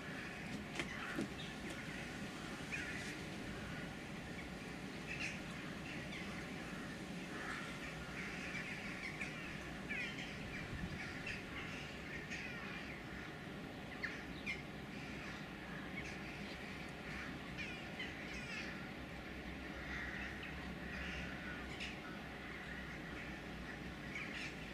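A flock of crows calling, many short caws overlapping throughout, over a steady low background rumble.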